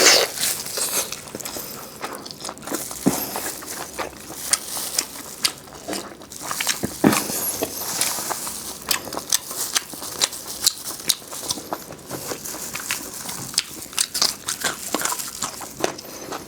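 Close-miked eating: crisp bites and chewing with many small crackling crunches, a few bites sharper than the rest.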